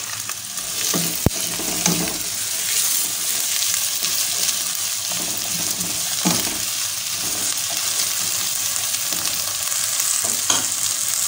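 Cut okra and sliced onions sizzling in hot oil in a wok as they are stirred, with a few sharp knocks against the pan.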